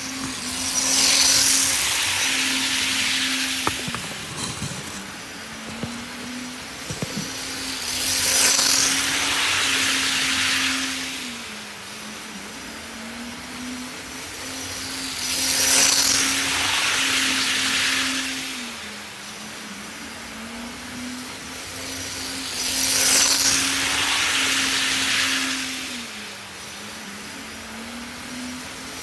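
HO scale model train running laps on a layout: a steady electric motor hum that dips slightly in pitch now and then, with wheel-on-rail noise swelling as the train passes close by about every seven and a half seconds, four times.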